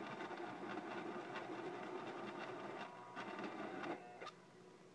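Pencil sharpener grinding a pencil whose lead has broken. It grinds steadily for about three seconds, then twice more briefly, and stops shortly before the end.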